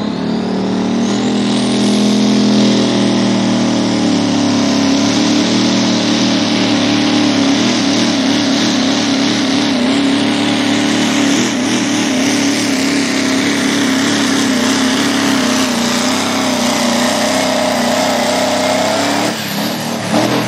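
Diesel pickup truck pulling a sled at full throttle: a whistle climbs sharply in pitch in the first second as the turbo spools up, then the engine runs flat out with a steady high turbo whine for most of the run. Near the end the engine drops off as the driver lets off the throttle at the end of the pull.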